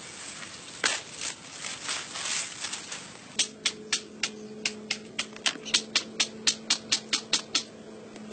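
A stone hand tool striking a green bamboo stalk: a few single knocks, then a rapid, even run of about twenty sharp taps, roughly five a second, that stops shortly before the end.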